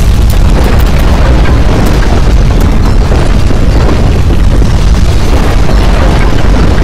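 Loud, continuous deep earthquake rumble with a crackling, noisy edge, steady throughout: the sound of strong ground shaking.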